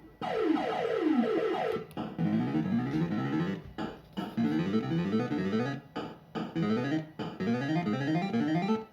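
Bell Fruit Cash Explosion fruit machine playing its electronic synth jingle. It opens with a couple of quick falling runs of notes, then plays repeated short phrases of fast rising arpeggios, broken by brief gaps.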